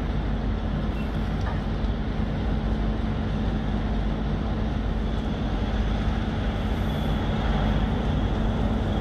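Steady city traffic noise with a constant low engine hum.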